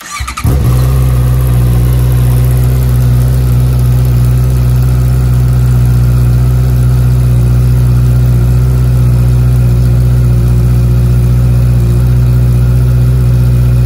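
Honda CBR650R's inline-four engine cold-started through a freshly fitted Akrapovic titanium full exhaust system: the starter turns briefly, the engine catches within about half a second and settles into a loud, steady idle.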